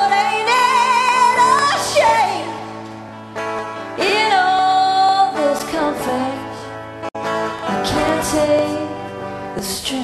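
A song playing: held, wavering sung notes over guitar accompaniment, with a momentary break in the sound about seven seconds in.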